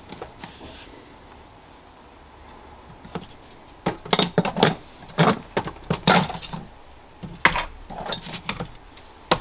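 Small hard objects being handled on a workbench: after a few quiet seconds, a string of light clicks, taps and clatters in irregular clusters.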